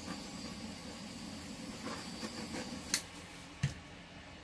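A steady hiss that cuts off about three seconds in with a sharp click, then a dull knock half a second later, as a handheld paint-pouring tool is switched off and set down.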